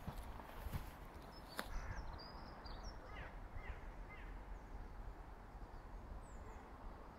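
A bird calling overhead: a few short, falling calls close together, about three to four seconds in, over low wind rumble on the microphone.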